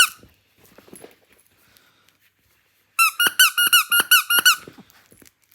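A rubber squeaky dog toy being squeezed: one squeak at the start, then a rapid run of about ten squeaks about three seconds in, as a chihuahua puppy plays with it.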